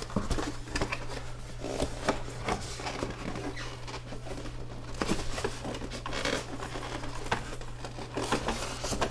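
A cardboard product box being opened and its contents pulled at by hand: irregular scrapes, rustles and small knocks, over a steady low electrical hum.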